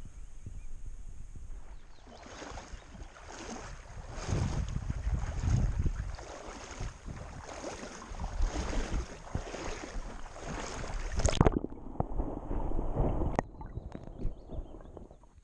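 Kayak paddle strokes splashing through the water in a steady rhythm, a little faster than one a second, with wind on the microphone. The sound changes abruptly near the end.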